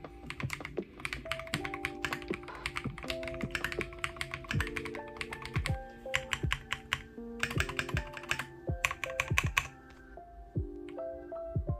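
Typing on a KiiBoom Phantom 81 gasket-mounted mechanical keyboard with a transparent case: rapid runs of keystrokes that stop about ten seconds in.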